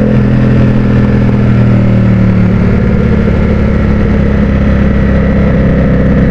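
Ducati Streetfighter V4's V4 engine running steadily in third gear as the bike slows down, its note shifting a little about two and a half seconds in.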